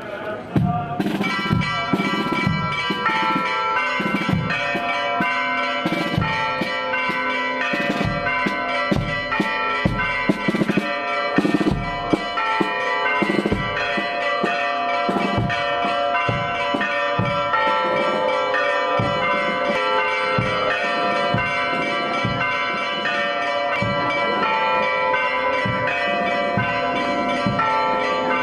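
Church bells ringing, struck over and over in an uneven run so that their tones overlap and keep sounding, starting about a second in.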